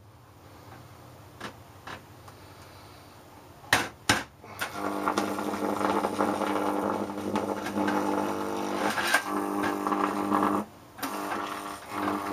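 High-voltage arc of about 5,000 volts drawn across a neon test screwdriver, buzzing loudly and steadily. It strikes about five seconds in after a couple of sharp snaps, breaks off briefly near the end and strikes up again.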